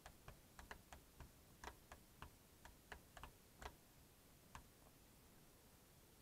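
Faint, irregular plastic clicks and taps as a Tata Nano's dome light cover is worked loose from its housing in the roof lining: a dozen or so over the first four seconds, then one more.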